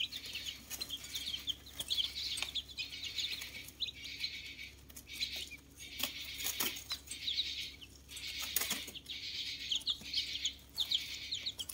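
Several newly hatched chicken chicks peeping continuously, a busy run of short, high chirps, with a few light clicks and rustles among them.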